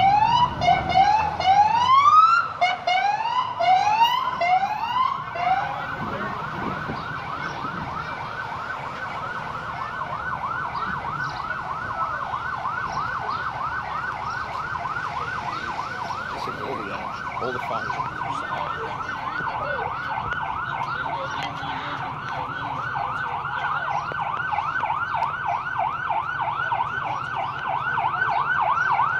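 Emergency vehicle siren. It starts with slower rising whoops and after about five seconds switches to a fast, steady yelp, growing louder near the end.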